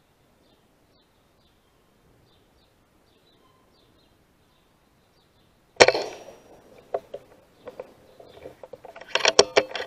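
Faint, repeated high chirps, then about six seconds in a single sharp rifle shot with a short ring-off, followed near the end by a quick run of sharp clicks and knocks.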